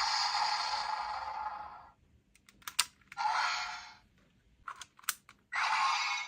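A toy voice changer's small speaker playing a hissing, whooshing sound effect that fades out, followed by sharp plastic button clicks, a short hissing burst, more clicks, and another sound effect starting near the end.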